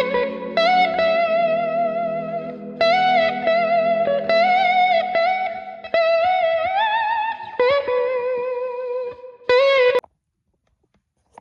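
Electric guitar music: a slow melody of plucked, sustained notes with wavering vibrato, cutting off suddenly about ten seconds in.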